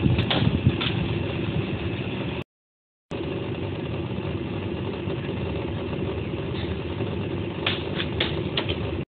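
A steady mechanical hum like an idling engine runs underneath. It cuts out for under a second about two and a half seconds in. Near the end come a few quick sharp swishes and thuds as a sword slices through a rolled bamboo-core tatami mat and the cut pieces fall.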